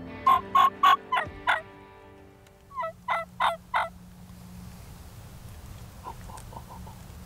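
Wild turkey calling: a run of five loud short notes about a quarter second apart, a second run of four about three seconds in, and a few faint notes near the end.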